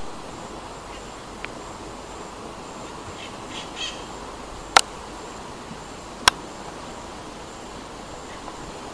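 Rural outdoor ambience: a steady background hiss, a brief burst of bird chirps about three and a half seconds in, and two sharp clicks about halfway through, a second and a half apart.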